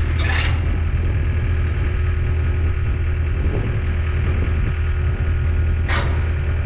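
A large engine idling steadily with a deep, even hum. Two short hisses cut through it, one right at the start and one about six seconds in.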